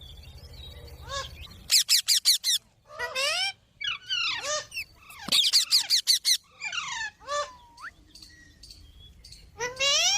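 Green parrot squawking in harsh bursts, some of them rapid strings of sharp notes, with short pauses between; the calls thin out near the end before starting again.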